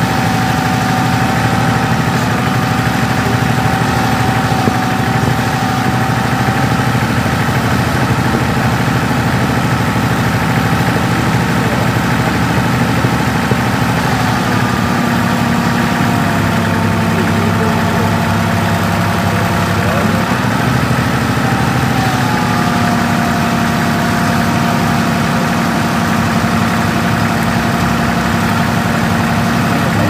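Backhoe's diesel engine running steadily. Its pitch dips about halfway through and comes back up a few seconds later.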